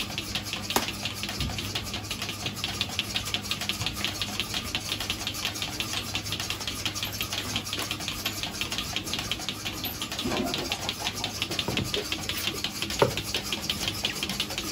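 A machine's motor running steadily, with a fast, even ticking over a low hum and a couple of sharp clicks.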